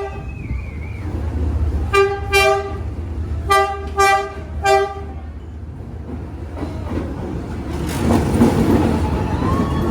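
A horn sounding in short toots, two in quick succession and then three more, over a steady low engine rumble. Near the end a rushing swell of traffic-like noise builds up.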